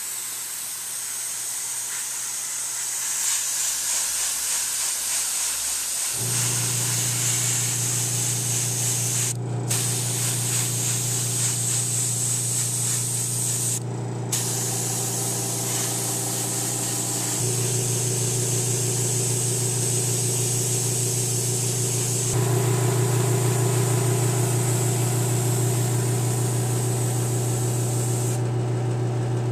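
Airbrush spraying temporary-tattoo paint: a steady high hiss that cuts out briefly twice. Under it a steady low hum, the airbrush compressor, comes on about six seconds in and grows louder in steps.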